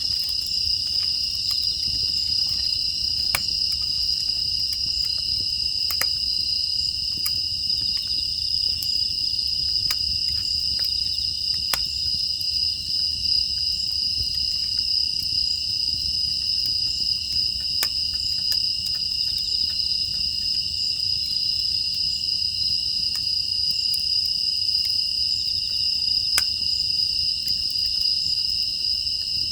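Crickets and other night insects chirping in a steady, unbroken high drone, with scattered sharp crackles from burning firewood in a wood-fired furnace.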